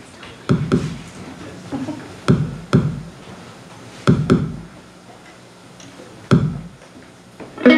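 Sparse electronic drum hits, each a deep thud that drops in pitch and dies away, coming in loose pairs about every two seconds over a faint steady hum. Sustained keyboard chords come in right at the end.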